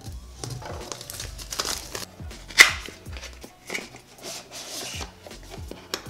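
A small cardboard product box being opened by hand: a blade slitting its seal, then scraping and rustling of the card as the lid is worked open, with one louder sharp scrape a little before halfway through. Quiet background music underneath.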